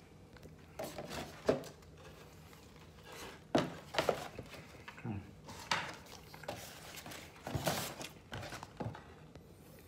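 A person chewing a mouthful of beef burger: irregular short mouth and chewing sounds, roughly a second apart.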